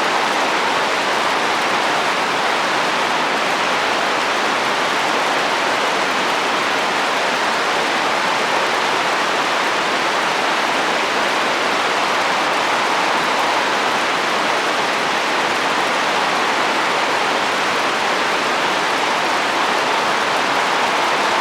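Steady rain falling on a roof with wind, an even hiss with no separate drops standing out.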